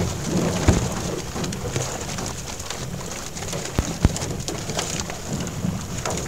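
Water pattering and splashing in a small fishing boat, with many small irregular ticks and a few sharper knocks against the hull.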